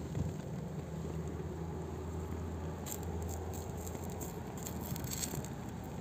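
Melted plastic burning in small flames and crackling as a charred stick prods and scrapes through it, with a few sharp clicks about three and five seconds in over a steady low hum.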